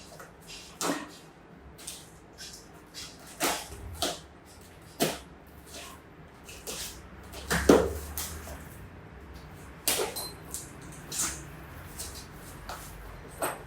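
A small cardboard accessory box being opened and its contents taken out and handled: a string of irregular short knocks, clicks and rustles, a few of them louder.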